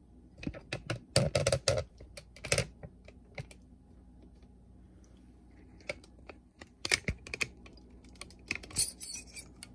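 Handling noise: quick, irregular clicks and taps close to the microphone, in two clusters, one near the start and one in the second half, while the camera is moved by hand over the open boombox.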